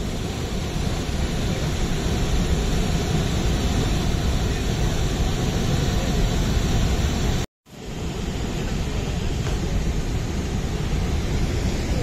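Steady roar of a large waterfall running in heavy monsoon flow. It is broken by a brief gap of silence about seven and a half seconds in.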